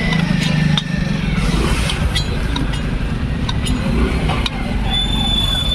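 Busy market street noise: motor traffic and motorcycle engines running, with scattered clicks and knocks. An engine hum drops away about a second in, and a thin high tone comes in near the end.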